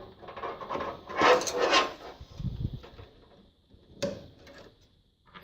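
Rustling and handling of SATA power cable leads, then a single sharp plastic click a little after four seconds as a connector is pushed home on a hard drive.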